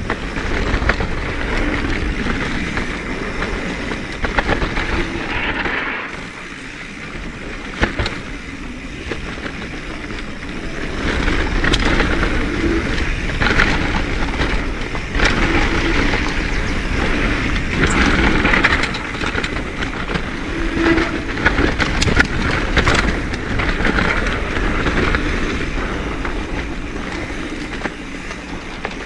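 Mountain bike riding fast down a dirt trail: tyres running over dirt and gravel, with the frame and chain rattling and frequent clicks and knocks over bumps. The noise rises and falls, easing off about six to ten seconds in.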